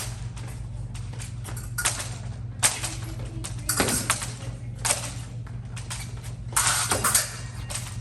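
Fencing hall sounds: irregular knocks, taps and clicks of épée footwork on the piste and blade contacts, with a cluster of quick hits about seven seconds in, over a steady low hum.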